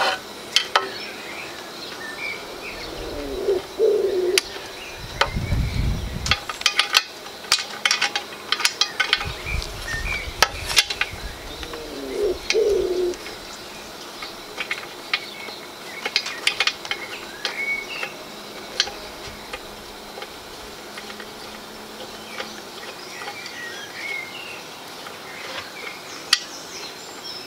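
Scattered sharp metal clicks and knocks as the chair's steel frame tubes, bolts and Allen key are handled and fitted together, with birds calling in the background.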